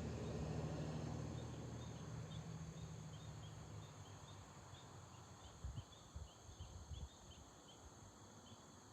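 Crickets and other insects chirping and trilling, faint. A low engine rumble fades away over the first few seconds, and a few low thumps come around the middle.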